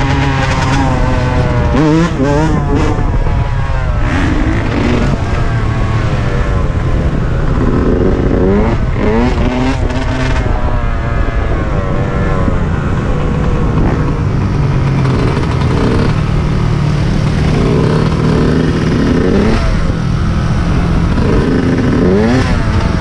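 Dirt bike engines running and being revved, the pitch climbing and dropping again and again as the throttle is worked, with sharp rev climbs about two seconds in, around nine seconds in and near the end, over a steady low engine drone.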